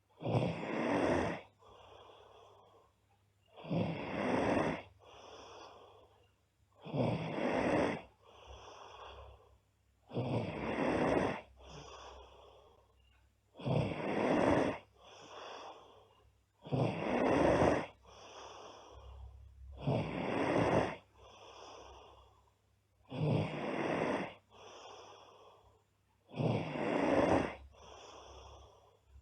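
A girl snoring loudly in a steady rhythm: nine loud snores, one about every three seconds, each followed by a softer breath.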